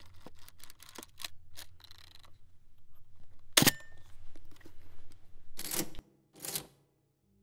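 Logo-intro sound effects: irregular mechanical clicks over a low hum, one loud sharp snap about three and a half seconds in, then two short whooshes near the end.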